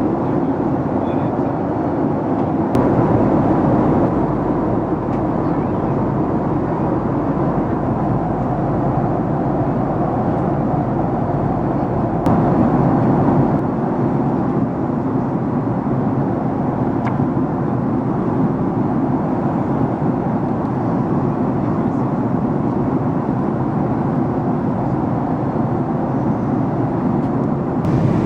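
Steady rumble of engines and airflow inside the cabin of a Boeing 767-300ER airliner, with a few faint clicks. The low end grows heavier about three seconds in.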